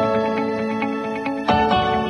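Soft instrumental background music with plucked, guitar-like notes, a new chord struck about a second and a half in.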